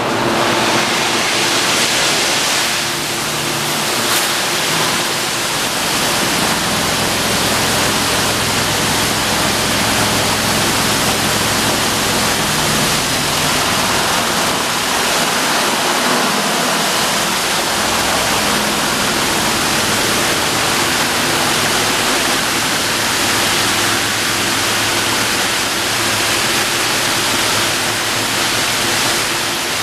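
Christ Varius automatic rollover car wash in its brush wash: a loud, steady rush of water spray and spinning brushes on the car, with a low steady hum underneath.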